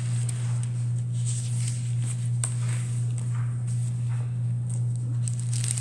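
A steady low hum, with faint scattered taps and rustles of handling over it.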